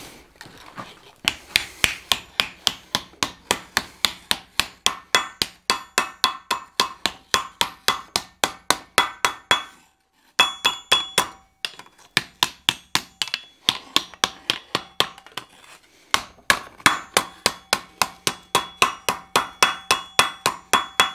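Hand hammer striking red-hot 14-gauge sheet steel laid in a swage block groove, about three ringing blows a second, to form the front half of a shovel's socket. The blows stop briefly near the middle, come more sparsely for a few seconds, then run fast again near the end.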